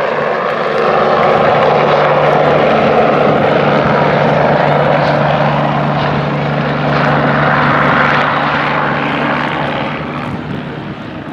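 Steady engine drone with a constant low hum, growing louder about a second in and fading over the last second or so.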